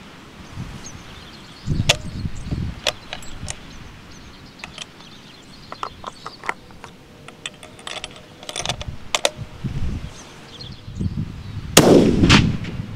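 Wind buffeting the microphone, with scattered small clicks and rustles. Near the end comes a single rifle shot, the loudest sound, from a scoped hunting rifle with a muzzle brake, fired prone.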